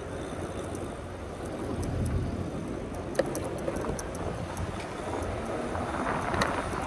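Steady rolling noise of an e-bike's 20x4 fat tires on pavement while riding, mixed with wind on the microphone, with a few faint clicks.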